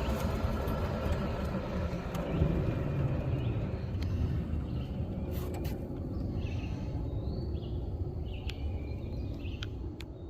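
Low, steady vehicle engine rumble that eases off from about four seconds in.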